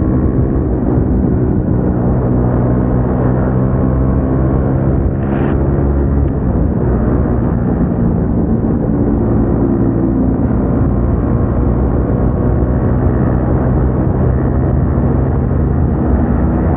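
Single-cylinder motorcycle engine with an aftermarket exhaust running at steady cruising revs, its pitch drifting slowly up and down, with a brief click about five seconds in.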